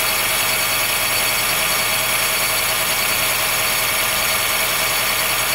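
Honda Fit Hybrid (GP5) running with a steady high-pitched squeal over it. This cold-weather squealing noise goes away once the car warms up, and the dealer judged it harmless.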